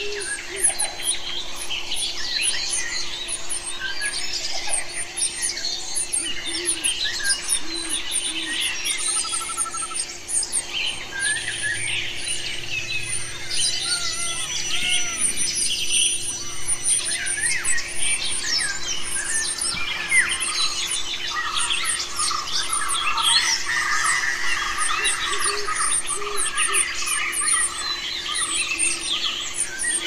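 Many birds chirping and calling at once: dense, overlapping high-pitched chirps with some trills, over a faint steady hum.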